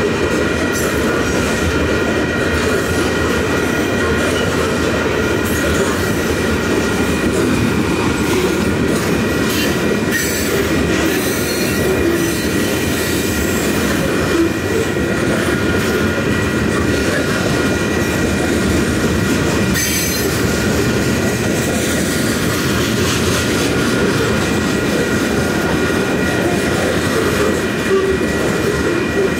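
Freight train of covered hopper cars rolling past at speed: a steady, loud rumble of steel wheels on rail, with a steady high-pitched ringing of several tones held over it throughout.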